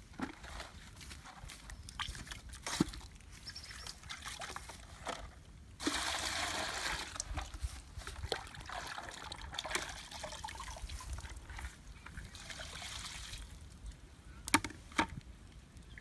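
Wood cooking fire crackling with scattered sharp pops, and a hissing sizzle that starts abruptly about six seconds in and dies away after about seven seconds; two louder pops come near the end.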